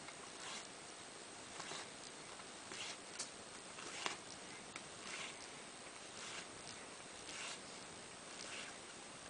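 Hand pad-stitching: a needle pushed through layered cloth and canvas and the thread drawn through after it, making faint, short rasping swishes about once a second.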